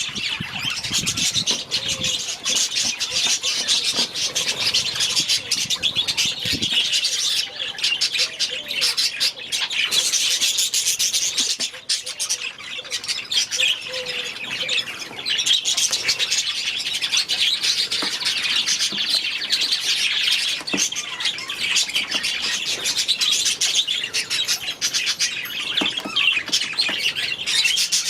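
A flock of budgerigars chattering continuously: a dense mix of rapid warbling chirps and squawks from many birds at once.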